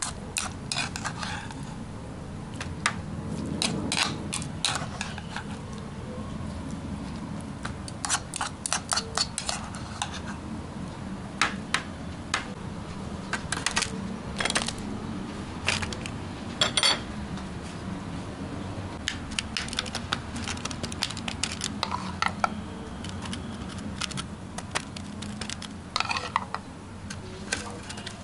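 Scattered light clicks and clatter of a metal spoon and black plastic bento trays being handled on a table, over a steady low hum.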